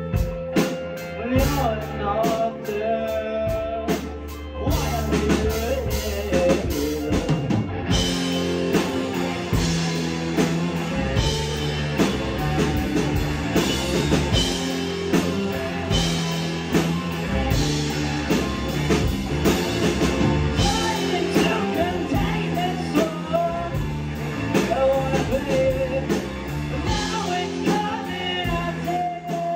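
Live rock band playing: a singer over electric guitar, bass and a drum kit. The playing is sparser at first and fills out about five seconds in, with cymbals added from about eight seconds.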